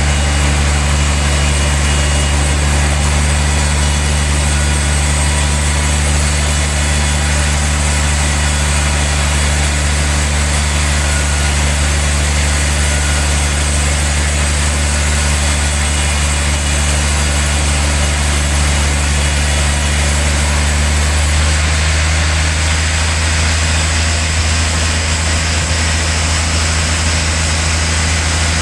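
Industrial sawmill machine running steadily while sawing a large log: a loud, constant low motor hum under a hiss of saw noise. The high hiss thins out about three quarters of the way through.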